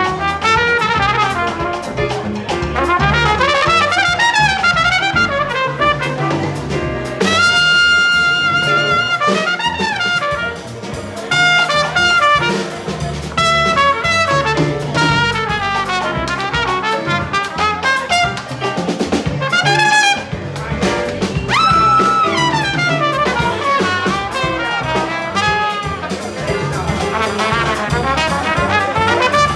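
Live small-group jazz: a trumpet plays a fast improvised line with a couple of long held notes, over double bass and drums.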